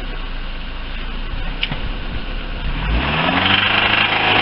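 Lifan car engine running, then revved up about three seconds in and held at higher revs. There is no metallic knocking, which oil-additive treatment has cleared from the engine.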